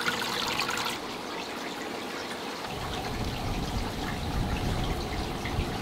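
Water trickling and splashing steadily into a fish tank, the return flow of its filter. A low rumble comes in about three seconds in.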